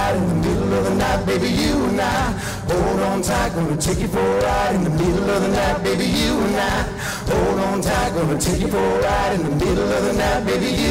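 Live country band playing, with lead and backing vocals singing over guitars, bass and drums.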